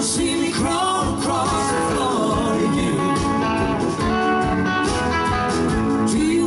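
Live blues-rock band playing, led by electric guitars (a Gibson SG and a Telecaster-style guitar) over keyboards, with a woman singing at times.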